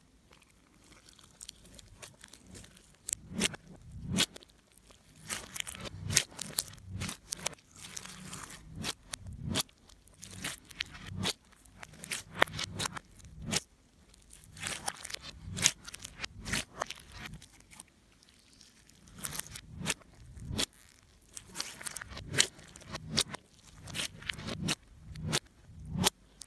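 Slime being kneaded and squeezed by hand, with wet squishes and irregular sharp crackling pops as air pockets in the slime burst.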